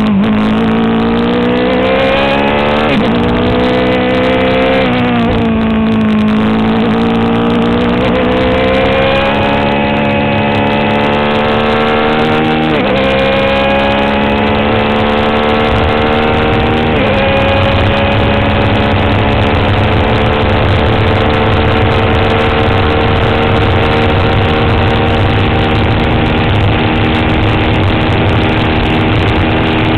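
Swift DB4 Toyota Atlantic racing car's 1.6-litre Toyota four-cylinder engine at full throttle, heard onboard. The pitch climbs and drops sharply at four upshifts in the first half, then holds high and steady while running flat out.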